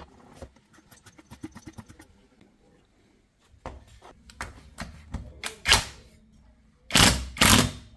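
Clicks and knocks of hand tools and small metal parts handled on a workbench during chainsaw engine reassembly. A quick run of small clicks comes first, then scattered knocks, and the loudest two knocks come near the end about half a second apart.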